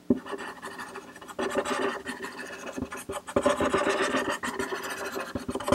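Felt-tip marker scratching across paper as a spiral is drawn in rapid, jittery zigzag strokes, the shaky line of an essential-tremor spiral-drawing demonstration. The scratching gets louder a second or so in.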